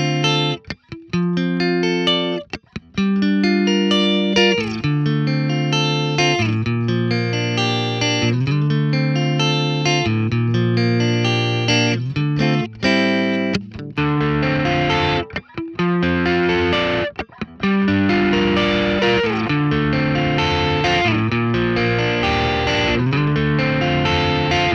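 Electric guitar played through an overdrive pedal, single notes and chords with short breaks between phrases. About halfway through it turns to a denser, more distorted tone that carries on.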